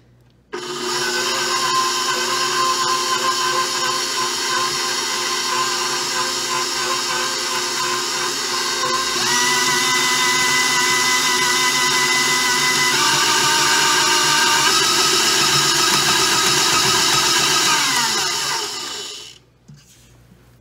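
Old KitchenAid stand mixer's motor running with its dough hook working stiff pie crust dough. It starts about half a second in, its pitch steps up twice partway through, and it falls in pitch as it runs down to a stop near the end. The owner calls the machine half worn out, with four of its gears already replaced.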